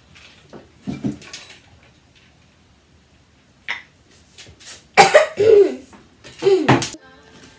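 A girl's voice making two short wordless sounds, each falling in pitch, about five and six and a half seconds in. Before them come a few light knocks of things handled on a table.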